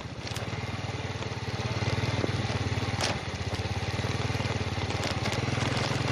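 Motorcycle engine running steadily as it rides up a rocky dirt road, getting louder about two seconds in, with a few sharp clicks of stones.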